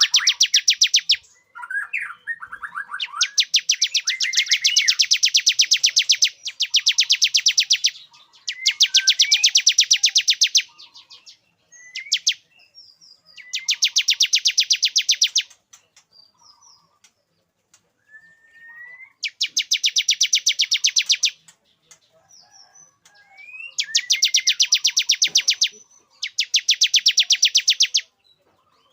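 Male bar-winged prinia (ciblek) singing its courtship song. It gives loud, very rapid trills of about two seconds each, several times over, with short chirps and rising whistled notes in the pauses between them.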